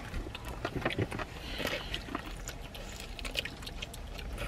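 Close-miked wet chewing of a ranch-dipped chicken wing: a run of small clicks and smacks from the mouth.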